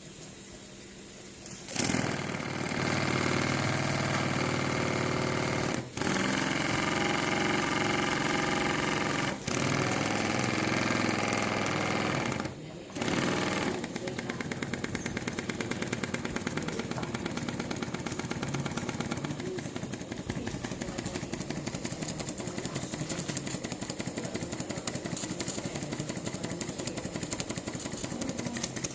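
Model three-cylinder steam engine running. For the first half it is a steady hum with held tones, cut off briefly a few times. About halfway through it settles into a fast, even stream of short beats.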